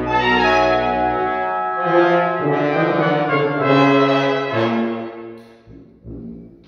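Brass ensemble of trumpets, trombone and low brass playing slow, sustained chords. The chords die away about five seconds in, leaving a few soft low notes.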